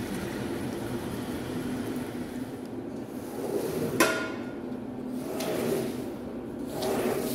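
Soapy water running steadily from a plastic watering can onto a wet rug. About four seconds in, a sharp knock as a long-handled squeegee comes down on the rug, then wet swishes of the squeegee pushing foam across the pile.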